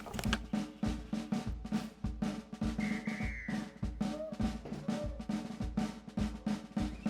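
Background music with a steady drum beat, a low kick about twice a second under snare hits and a sustained bass line.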